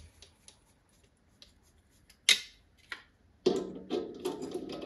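Small clicks and a sharp clack from metal parts being handled, then, from about three and a half seconds in, the carriage handwheel of a Paulimot PM190-V mini lathe being cranked, its gearing rattling with a steady whir as the carriage runs along the bed.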